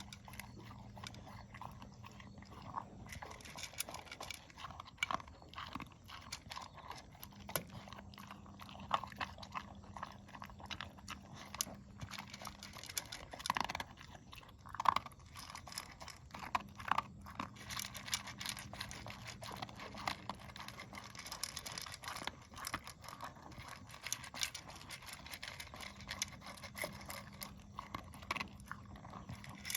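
A pet chewing and crunching its dinner, a long run of small crisp crunches and clicks. A low hum comes and goes in the background.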